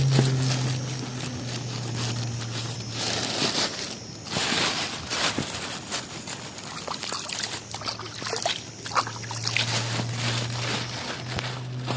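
Water trickling and splashing in irregular bursts, with small clicks. A steady low hum fades out about two seconds in and comes back near the end.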